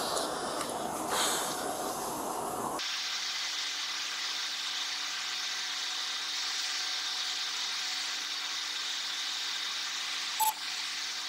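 Faint outdoor background, then about three seconds in an abrupt switch to a steady, even hiss with a faint low hum. It stops abruptly shortly before the end. The hiss is edited-in noise over a sped-up stretch of body-camera footage, not a sound from the scene.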